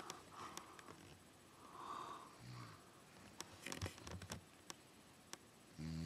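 A sleeping woman breathing noisily, with soft wheezy breaths and a brief low grunt, a few faint clicks midway, then a loud, low snore starting just at the end.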